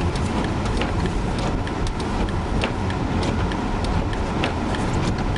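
Car cabin while driving slowly: a steady low road and engine rumble, with irregular sharp ticks several times a second.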